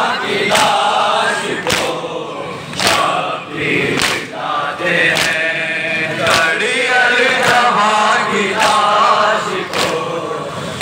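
A crowd of Shia mourners chanting a noha together, kept in time by a sharp unison slap of hands on chests (matam) a little less than once a second.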